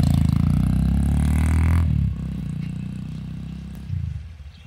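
Sports-style motorcycle engine accelerating away, its revs rising. About two seconds in the sound drops off suddenly, and the engine goes on fainter as the bike rides into the distance.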